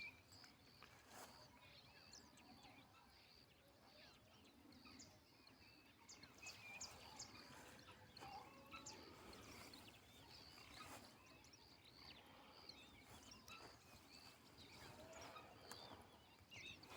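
Near silence: faint outdoor background with scattered short, high chirps and a few small clicks.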